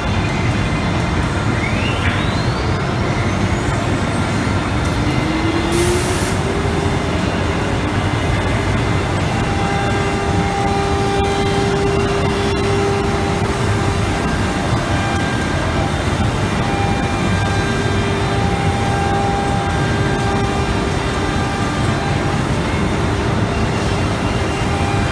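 CNC router spindle spinning up, its whine rising over the first few seconds and then holding steady as it cuts a door blank, over loud, steady machine noise. A short hiss of air comes about six seconds in.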